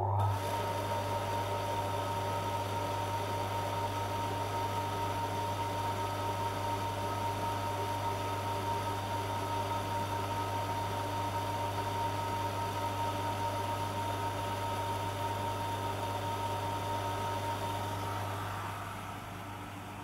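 A small liquid-circulation pump switches on and runs with a steady low hum, a couple of steady whine tones and a hiss, easing slightly near the end.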